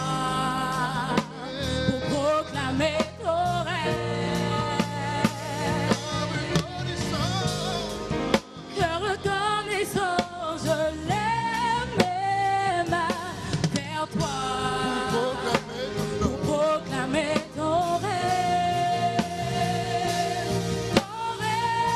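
Live gospel song: a lead vocal with wavering, gliding runs sung over a choir and instrumental backing with a steady beat.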